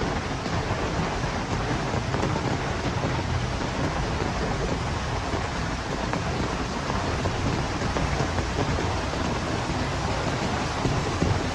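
Heavy rain in strong wind, a steady, unbroken rush of noise, with a low rumble of wind on the microphone.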